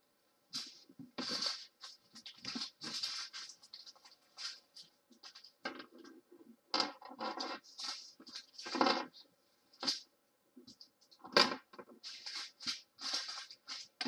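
Small plastic zip bags of diamond painting drills being picked up, shuffled and set down: irregular crinkling and rustling in short bursts with brief pauses.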